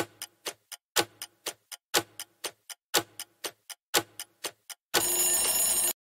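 Countdown-timer sound effect: clock ticking at four ticks a second, the first tick of each second louder, for five seconds. When time runs out it is followed by an alarm sound lasting about a second that cuts off suddenly.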